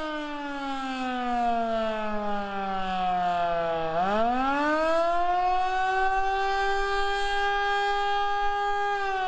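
Federal Signal Model 2 outdoor warning siren sounding the attack signal. Its tone slides steadily down for about four seconds, rises quickly back up, holds high for about four seconds, then starts to fall again near the end.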